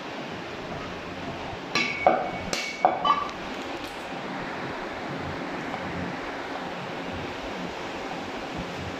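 Four or five sharp metallic clinks and knocks, some ringing briefly, from a butcher's steel cleaver and knife striking each other and the wooden chopping block, about two to three seconds in, over a steady hiss.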